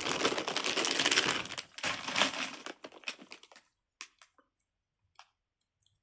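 Small plastic fidget toys being handled: dense crackling and clicking for about three and a half seconds, then a few scattered clicks.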